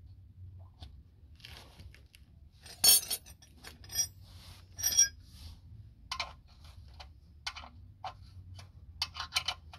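Metal spanners clinking on the concrete and against the 14 mm steel sump plug as it is worked by hand. Scattered sharp clinks with a short ring, the loudest about three and five seconds in, then several in quick succession near the end.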